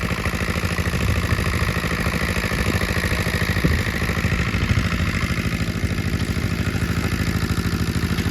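A small engine running steadily at an even speed, with a fast regular pulse and no change in pitch.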